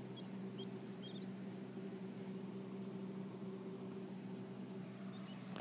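Button quail chicks giving short, high peeps about once a second, over a steady low hum.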